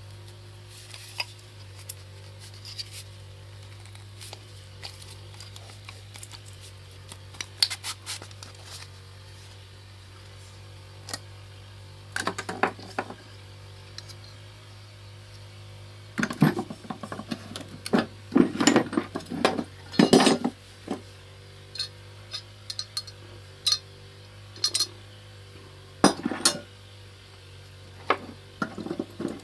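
Irregular metallic clinks and knocks, bunching into a busy spell about halfway through, over a steady low hum.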